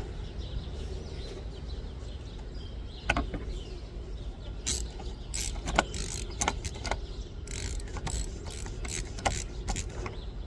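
Socket wrench with a 1-inch socket and extension loosening and unscrewing the oil filter housing cap: irregular sharp clicks and knocks of the tool and socket, with creaking as the cap turns.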